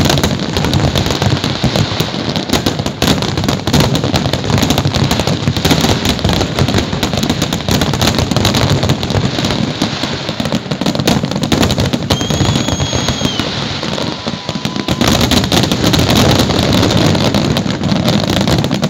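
Aerial fireworks going off in a dense, continuous barrage of crackling bangs. A short, high whistle-like tone sounds about twelve seconds in.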